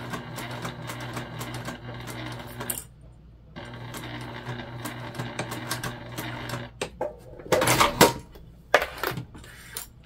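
Sewing machine stitching at a steady pace through a vinyl bag panel, with a brief pause about three seconds in, then stopping about seven seconds in. A few loud rustles and knocks follow as the sewn piece is handled.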